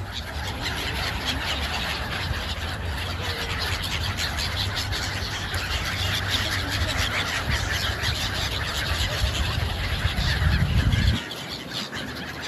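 A large flock of gulls calling, many short high calls overlapping into a continuous clamour, over a low rumble that cuts off abruptly near the end.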